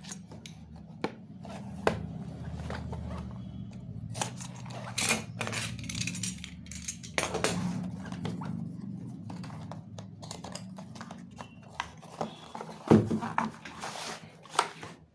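A small cardboard box is slit open and unpacked by hand: the cardboard scrapes, rustles and tears, and the box knocks against a wooden table, with the heaviest thump about 13 seconds in. A low steady hum runs under the first half.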